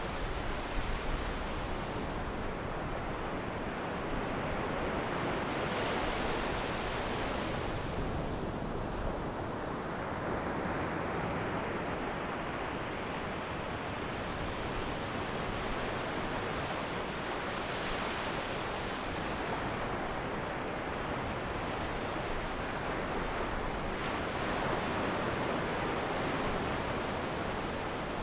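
Ocean surf: waves breaking and washing up the shore in a continuous rush that swells and eases, with stronger breakers about 6 s, 18 s and 25 s in.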